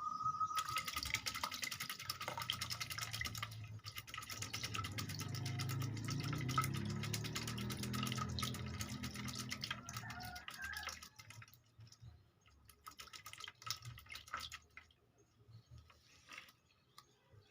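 Water running and splashing, with a dense patter of small drops, stopping about three seconds before the end.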